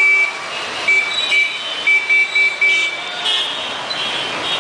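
Vehicle horns tooting in a run of short beeps, about eight in the first three seconds and a higher-pitched one a little later, over the steady noise of busy street traffic.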